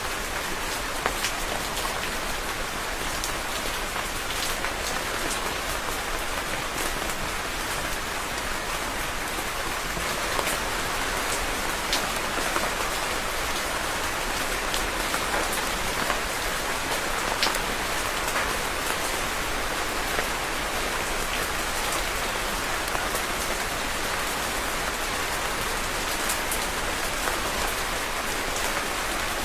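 Steady rain falling, with a constant hiss and many separate drops pattering on a surface.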